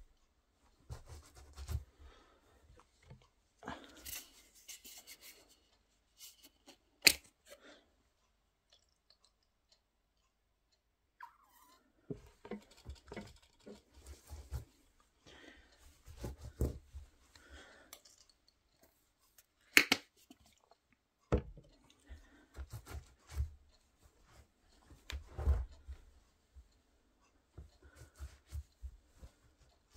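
Nike Air Max 270 trainers treading and squishing in a wet, sticky food mess on a cloth towel: irregular squelching and crackling steps. Two sharp clicks stand out, the loudest sounds, and there is a short lull about a third of the way in.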